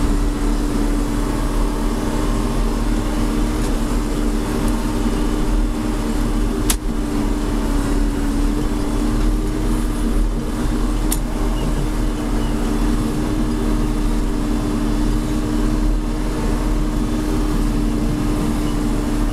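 John Deere 4630's six-cylinder diesel engine running steadily under load while pulling a chisel plow through clover, heard from inside the tractor cab. Two sharp clicks, about seven and eleven seconds in.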